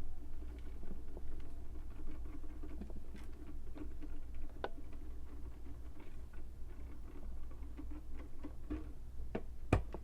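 Scattered faint clicks and light taps, irregular and a second or so apart, over a low steady hum.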